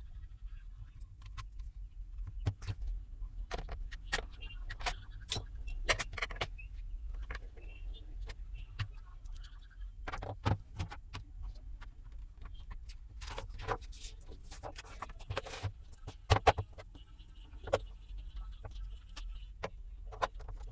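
Scattered clicks, taps and clatter of hand tools and the induction cooktop's plastic casing being handled while the unit is put back together and closed, over a low steady hum. The sharpest knocks come about ten seconds in and again around sixteen seconds.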